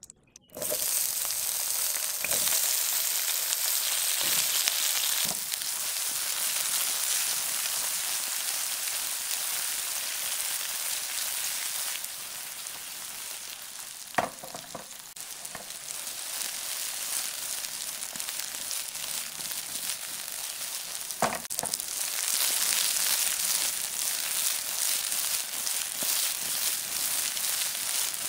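Eggplant pieces sizzling as they fry in hot oil in a nonstick pan. The sizzle starts abruptly about half a second in and runs steadily, with two sharp knocks about halfway through and about three-quarters through, and grows louder near the end as the pan is shaken to turn the pieces.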